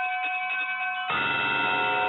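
Bells ringing together, several lasting tones overlapping over quick light strikes. About a second in a heavier bell is struck and its deep ringing fills in underneath.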